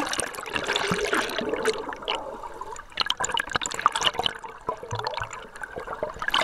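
A splash as the camera goes into the sea, then muffled underwater gurgling and bubbling full of small clicks and crackles.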